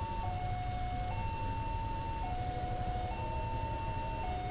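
Railway level-crossing warning alarm sounding a two-tone signal, alternating a higher and a lower tone about a second each, warning that a train is approaching with the barriers down. A low rumble runs underneath.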